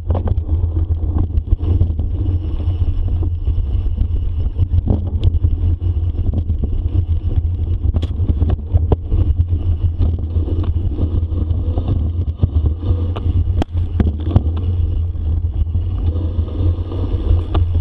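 Riding noise from a bicycle moving fast on a forest trail: a steady low rumble of wind buffeting the microphone, with frequent short clicks and rattles from the bike going over bumps.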